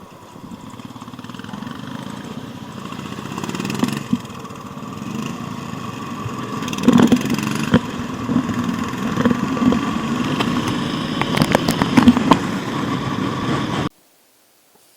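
Motorcycle engine running on the road, growing steadily louder, with a few sharp knocks along the way. It cuts off suddenly near the end.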